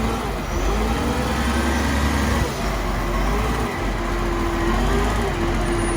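A motor vehicle engine running steadily, a low rumble with a faint wavering hum above it.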